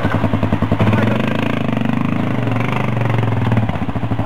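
ATV engine revving up about a second in and held at high revs as the quad climbs a steep muddy bank, then throttled back to a lower, pulsing note near the end.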